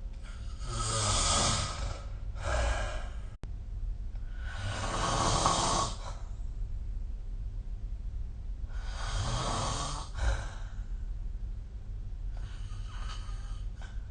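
A person snoring in sleep: noisy snoring breaths come about every four seconds over a steady low hum.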